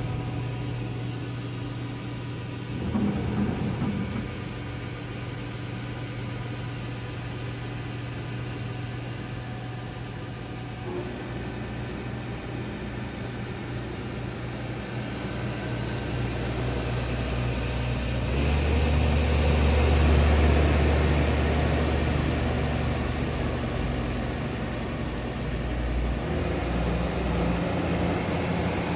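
Southwestern Industries Trak TRL 1630SX CNC lathe running, a steady machine hum whose pitch changes a few times as the spindle speed shifts; it grows louder about eighteen seconds in, peaks around twenty seconds, then eases off.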